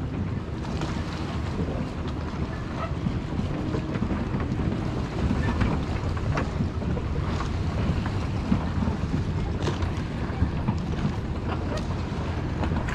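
Wind rumbling on the microphone over water lapping against a dock and a floating kayak launch, with a few light clicks scattered through.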